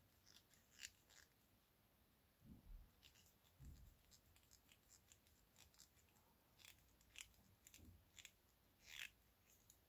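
Faint, irregular little clicks and scrapes of a small screwdriver turning a tiny screw into injection-moulded plastic model parts held between the fingers, with a few soft handling bumps.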